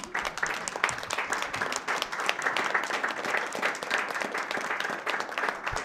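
Audience applause: a steady patter of many hands clapping.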